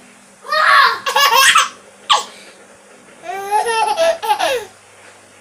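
Baby laughing in three bouts: a run of laughs about half a second in, a short one around two seconds, and a longer, higher laugh past the three-second mark.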